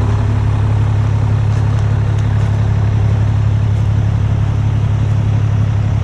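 Semi truck's diesel engine running with a steady low hum.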